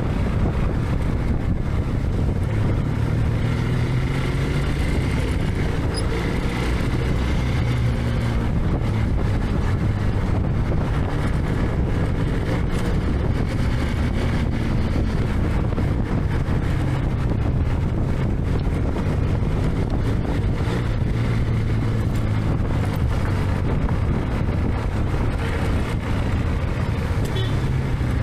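Motorcycle engine running steadily under way, with wind and road noise. The low engine note rises and falls gently with the throttle.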